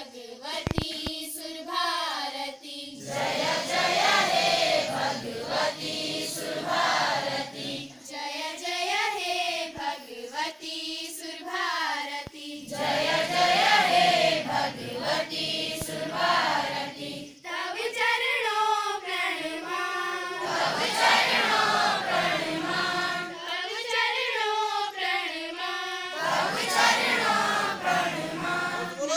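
Schoolchildren singing a devotional prayer together as a choir, in long sung phrases.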